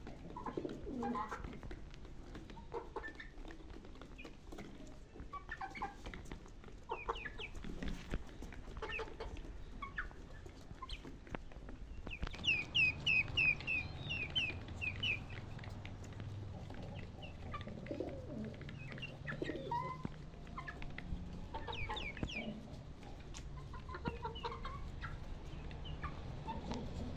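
Chickens clucking softly here and there as they forage, with pigeons cooing. About halfway through comes a quick run of high chirps lasting a few seconds.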